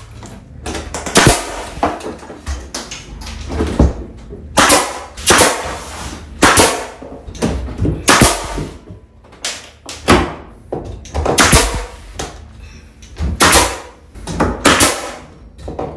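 Pneumatic nail gun firing nails through wooden furring strips into wall studs: a string of sharp shots, irregularly spaced, some in quick pairs.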